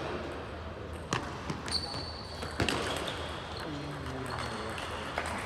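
A few sharp, separate ticks of table tennis balls bouncing, spread over the first few seconds, over a steady background hum and voices.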